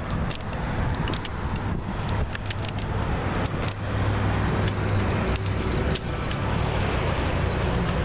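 Road traffic with a steady low rumble that swells about halfway through, and wind crackling on the microphone. Church bells ring faintly beneath it, mostly covered by the traffic.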